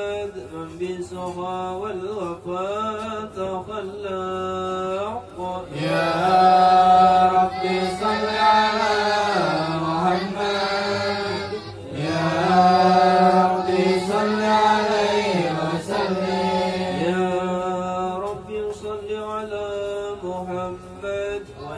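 Men's voices chanting Arabic salawat in habsyi devotional style, in long drawn-out, ornamented lines. The chant grows louder and fuller from about six seconds in, then drops back to a thinner line after about sixteen seconds.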